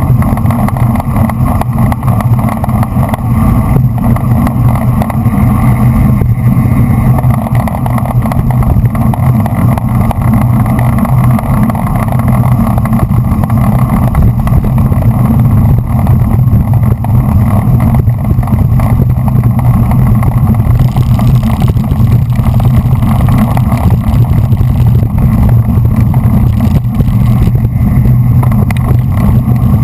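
Wind rushing over a moving action camera's microphone, with tyre and road noise from riding in a bunch of racing road bikes: a loud, steady, deep rumble that does not let up.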